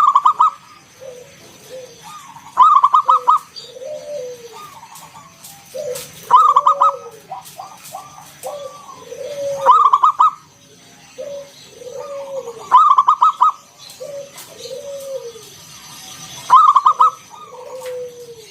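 Zebra dove (local perkutut) cooing over and over, about six song phrases spaced roughly three seconds apart. Each phrase opens with a quick loud run of staccato notes, followed by lower, rounded coos that rise and fall.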